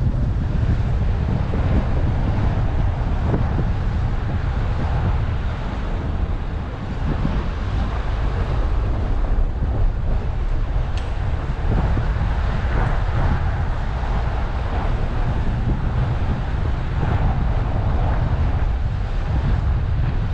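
Steady low wind rumble buffeting the microphone over the road noise of a moving car.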